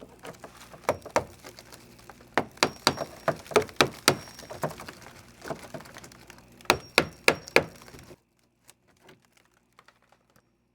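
Irregular sharp knocks and cracks of wood being struck and broken, typical of rotten wooden boat frames being knocked out of a hull. They stop abruptly about eight seconds in, leaving only a few faint clicks.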